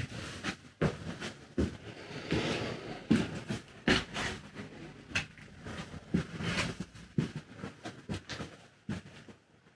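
Footsteps and scuffs on a debris-strewn floor, with scattered knocks and rustles, coming about once a second.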